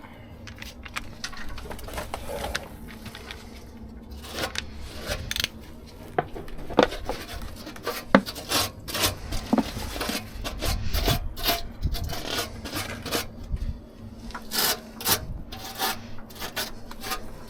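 Hand tools working on metal: rubbing and scraping with many irregular sharp clicks and knocks, at their busiest in the second half.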